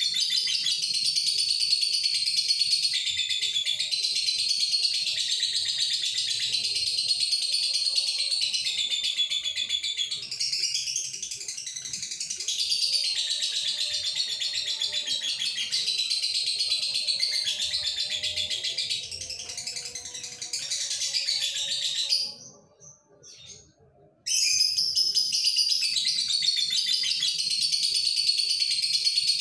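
Male lovebird singing a long, continuous, high-pitched song, the drawn-out singing of a male in breeding condition. It breaks off for about two seconds near the end, then starts again.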